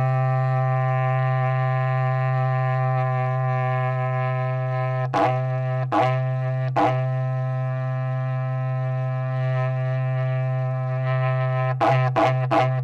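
Berrante, the Brazilian cowherd's horn made of cattle horn, blown in one long low held note. About five to seven seconds in it is broken by three short accented blasts, and near the end it turns into a quick run of pulsed toots, about three a second.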